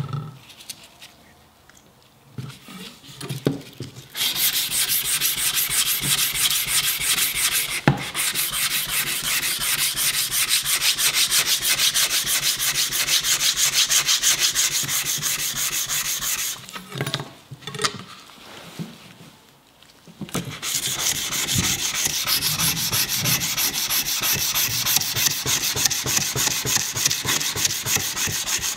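Sandpaper rubbed rapidly back and forth over the flat of a Sugimoto kitchen knife's steel blade, sanding off the old patina. A few knocks come first, then the sanding starts about four seconds in, stops for a few seconds past the middle with a couple of knocks, and starts again.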